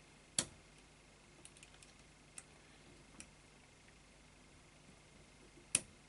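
Metal clicks from a push-button combination padlock as its buttons are pressed while the shackle is held under tension: a sharp click about half a second in, a few faint ticks in the middle, and another sharp click near the end.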